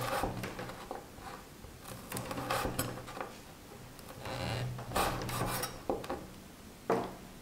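Chinese cleaver slicing red dates (jujubes) on a wooden cutting board: short knocks of the blade striking the board, in small clusters of two or three.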